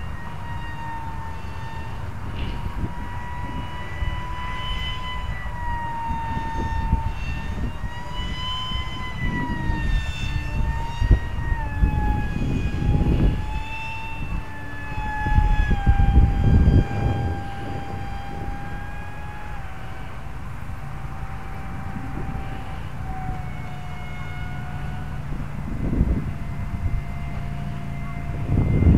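Radio-controlled foam-board slender delta plane's motor and propeller whining in flight: a steady high tone that wavers as the plane manoeuvres and gradually drops in pitch. Wind rumbles on the microphone several times, loudest a little past halfway.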